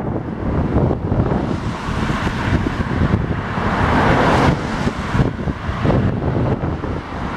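Wind buffeting the microphone over the steady noise of car traffic on the bridge deck alongside, swelling louder around four seconds in.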